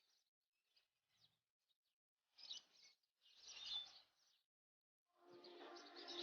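Birds chirping faintly in short, scattered bursts, with a louder, busier stretch of calls starting near the end.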